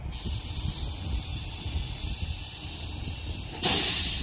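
Compressed air hissing steadily from a tow truck's air-ride suspension as it vents. About three and a half seconds in comes a much louder blast of air that trails off.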